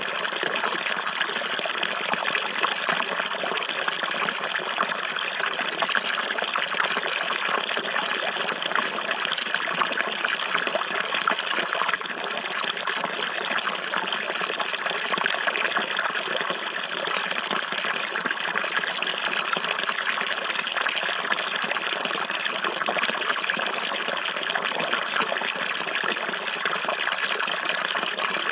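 Running water flowing steadily, a continuous even rush with no breaks, with a slight drop in level about twelve seconds in.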